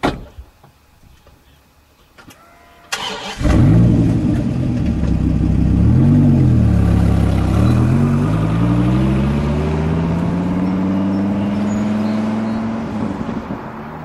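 Dodge Viper's V10 engine started about three seconds in, blipped a couple of times, then pulling away and accelerating, its pitch rising steadily and its sound falling off near the end. A single thump right at the start.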